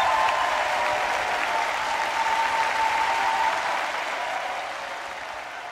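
Concert audience applauding after a song, which fades out over the last couple of seconds.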